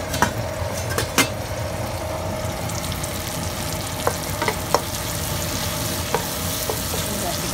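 Chopped tomato, shallots, garlic and chilies sizzling in oil in a nonstick wok, stirred with a wooden spatula that knocks against the pan now and then. A few sharp clinks come in the first second or so.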